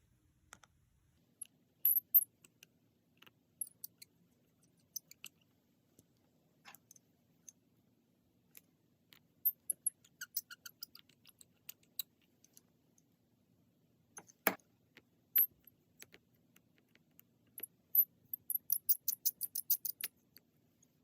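Scattered small, sharp metallic clicks and ticks of precision hand tools working on an iPhone screen assembly's tiny screws and bracket. A single louder click comes about two-thirds of the way through, and near the end there is a quick run of about eight ticks a second.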